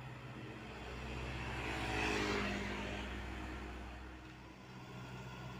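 Komatsu PC78UU mini excavator's diesel engine running steadily, while a road vehicle passes close by, swelling to its loudest about two seconds in and then fading away.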